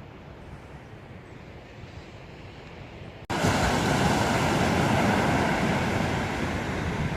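A quiet low rumble, then an abrupt cut about three seconds in to loud sea surf washing on the shore, with wind buffeting the microphone.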